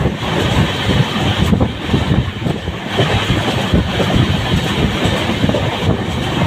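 Express passenger train running at speed, heard from aboard the coach: a steady rumble and clatter of wheels on the rails.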